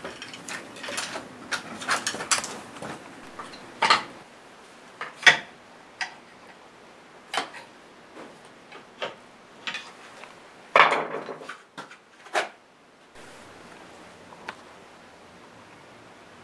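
Small metal parts clinking and tapping while ignition coils on an aluminium mounting plate are handled and fitted on top of a motorcycle engine. It is a string of sharp, irregular clicks and clanks, with a longer, louder scrape near eleven seconds, and it stops after about thirteen seconds, leaving a quiet hiss.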